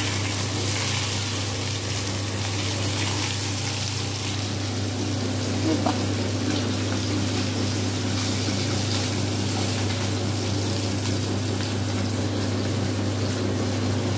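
Indian mackerel (bangda) frying in shallow oil in a pan: a steady sizzle over a constant low hum.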